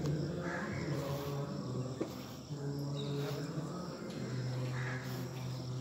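A low pitched drone held in long notes of a second or two each, over a faint steady insect chirring.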